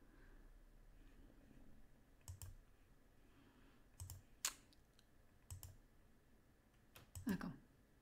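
Computer mouse clicking: a few single clicks spread a second or two apart over quiet room tone. Near the end there is a brief low sound that falls in pitch.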